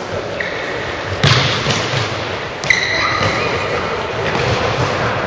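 Korfball being played in a reverberant sports hall: a ball thumps about a second in, then a sharper knock comes near three seconds, followed by short high squeaks.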